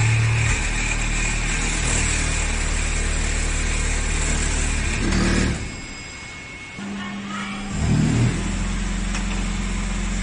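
Flour packing machine running: a steady machine hum from its motors, with several steady tones. About halfway through it drops quieter for a second or so, then comes back as a steady low hum.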